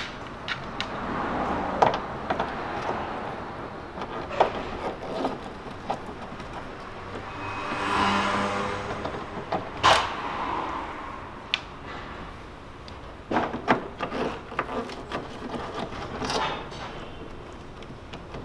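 Hand work on the front grille of a Mercedes W211 as its retaining screws are undone: scattered clicks, knocks and scrapes of tool, screws and plastic grille. A louder rush of noise swells and fades about eight seconds in.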